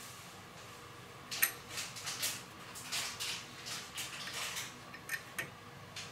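Allen key working the set screw in the chrome wall bracket of a sunflower shower column, turned counterclockwise to loosen it: a run of light, irregular metal clicks and scrapes starting about a second and a half in.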